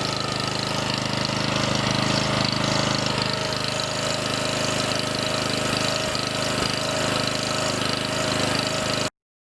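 Small engine of an OREC self-propelled two-sided slope mower running steadily, now running again after years of refusing to start. The sound cuts off abruptly near the end.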